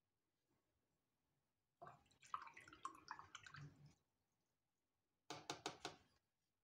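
Paintbrush being swished in a plastic cup of rinse water: wet splashing with knocks against the cup for about two seconds, then a quick run of about five clicks near the end.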